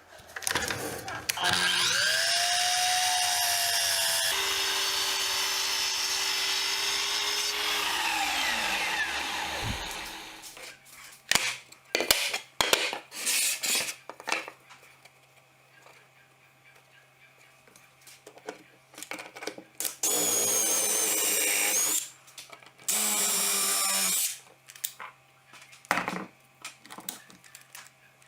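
A power tool's motor spins up, runs steadily for about seven seconds, then winds down with a falling pitch. Several knocks and clatters of wood and tools follow, then two short bursts of the motor.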